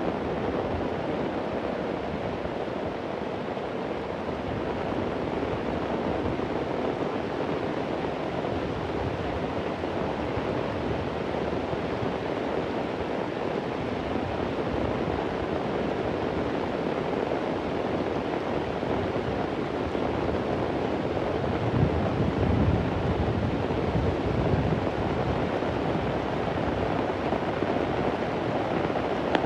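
Heavy rain falling with a steady hiss. About three-quarters of the way through, a low rumble of thunder swells for a few seconds.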